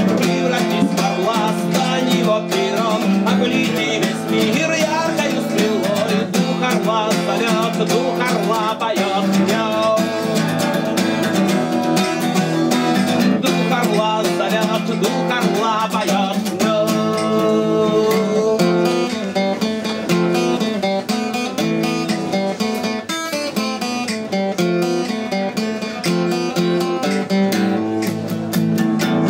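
Acoustic guitar strummed steadily while a man sings over it for roughly the first half; from about sixteen seconds in the guitar plays on alone.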